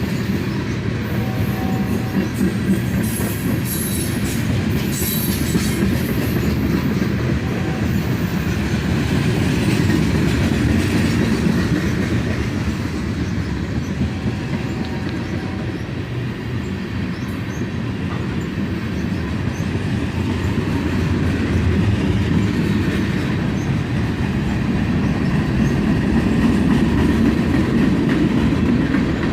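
Long mixed freight train rolling past at medium speed, a steady rumble of freight cars on the rails, with a few brief high wheel squeals in the first few seconds.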